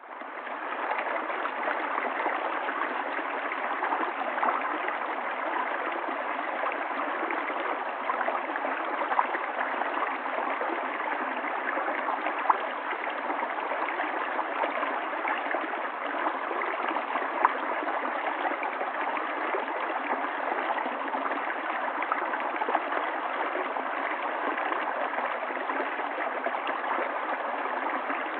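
River water running: a steady rushing and gurgling with a few brief clicks. It fades in at the start.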